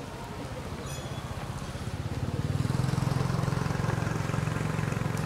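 A motor vehicle's engine running with a low pulsing hum, growing louder about two seconds in.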